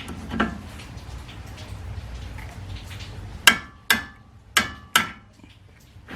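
Four sharp metal-on-metal hammer blows in two quick pairs, each with a short ring, struck to break loose a seized nut on a car's outer tie rod end.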